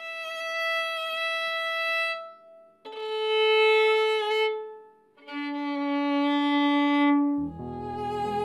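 Solo violin: three long bowed notes, each lower than the last, with a short break between them. Near the end, other music with lower notes comes in.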